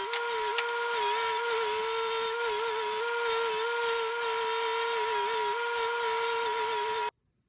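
A power tool running steadily at one slightly wavering pitch under a loud hiss, cutting off abruptly near the end.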